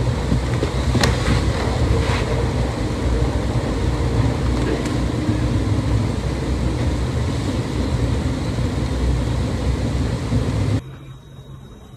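Steady, loud rushing noise with a low rumble underneath and a few faint clicks, cutting off suddenly near the end.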